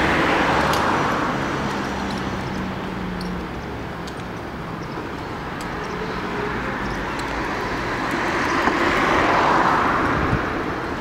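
Road traffic noise: the rush of one vehicle passing fades after the start, and another swells and passes around nine seconds in.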